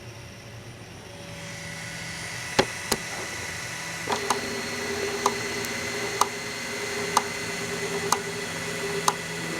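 M3D Micro 3D printer running: a fan whir builds up over the first couple of seconds, a steady motor whine joins about four seconds in, and sharp clicks come about once a second.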